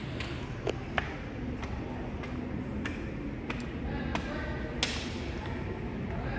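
Footsteps on hard stone stairs and tile floor: sharp, irregular taps, about eight in all, over a steady low background rumble.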